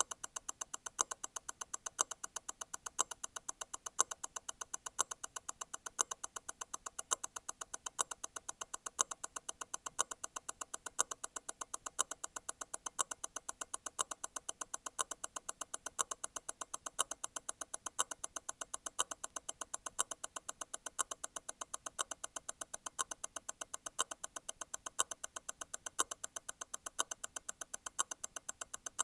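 Grand Seiko T0 Constant-force Tourbillon movement ticking at 28,800 vibrations per hour, about eight quick ticks a second. About once a second a louder click falls in, as the constant-force stop wheel disengages and catches again.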